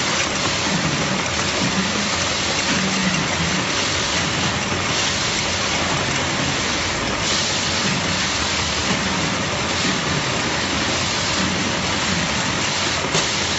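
Steady, loud hissing noise of production-line machinery running on a factory floor, with no distinct knocks or tones.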